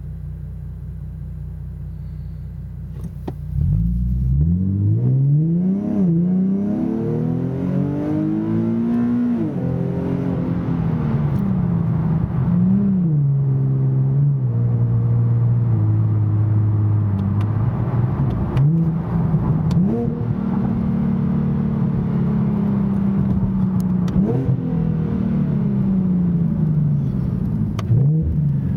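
2009 Nissan 370Z's 3.7-litre V6 heard from inside the cabin through a Fast Intentions exhaust with carbon-fibre resonators and non-resonated high-flow cats. It idles, then about three seconds in it pulls away hard, its note climbing and dropping back at two upshifts of the seven-speed automatic. It then settles into a steady cruise and gives several brief rev blips as the car slows.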